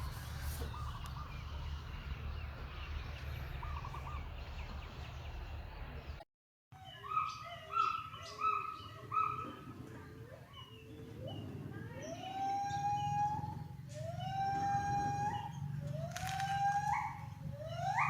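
A low steady hum with faint animal calls, then a brief drop to silence about six seconds in. After that comes a run of high animal cries: short repeated calls, then longer calls that rise in pitch and hold, coming quicker near the end.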